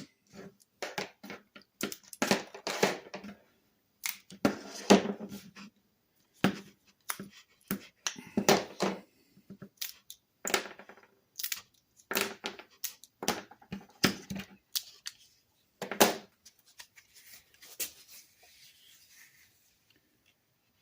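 Clamps being loosened and pulled off a freshly formed toolbox handle wrap: a run of irregular clicks and clacks as the clamps are released and set down, fading to faint rustling near the end.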